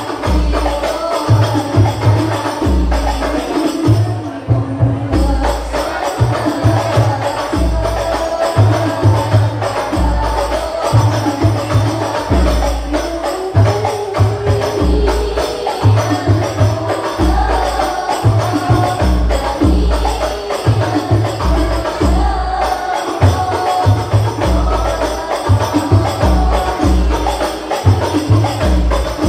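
Hadrah al-banjari ensemble playing sholawat: hand-struck frame drums (terbang) in a steady, interlocking repeating beat with deep bass drum strokes, under a group of female voices singing the melody into microphones.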